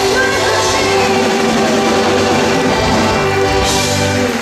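Organetto (diatonic button accordion) with a live band, sounding a long held chord as the fast folk tune ends. It stops sharply just before the end.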